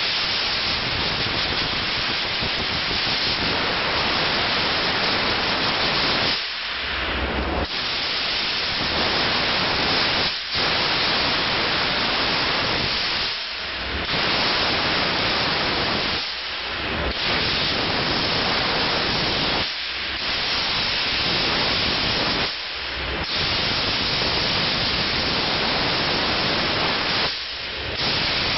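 Steam jet hissing steadily from an Optima Steamer steam wash gun sprayed onto a dirty car's body panels, with short breaks in the hiss about every three seconds.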